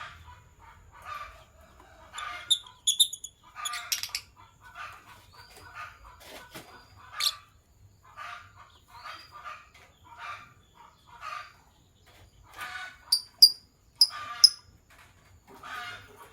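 Lovebirds chirping and chattering: a rapid string of short, squawky calls, with a few sharp, high-pitched squeaks mixed in about two seconds in and again near the end.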